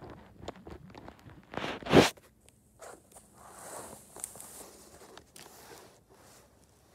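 Plastic magnetic building tiles being handled: irregular rustling scrapes and small clicks, with one loud scrape about two seconds in.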